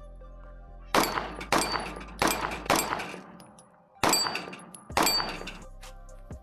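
Six 9mm pistol shots from a Fusion Firearms XF-Pro, each with a ringing tail. Four come in quick succession about half a second apart, then two more a second apart. Faint background music plays under them.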